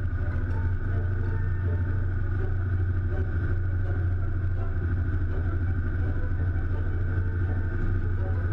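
M35A2 2.5-ton 6x6 military truck's engine running steadily as a low, even drone while the truck drives slowly through deep snow, heard close from a camera mounted on its hood.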